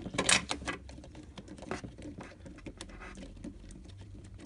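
Light clicks and taps of fingers handling refillable ink cartridges, their ink-supply tubes and the metal tube holder of a continuous ink supply system. A cluster of louder clicks comes in the first second, then scattered light ticks.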